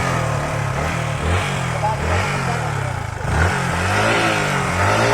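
Yamaha R15's single-cylinder engine revving up and down several times, held on the brake for a stunt attempt.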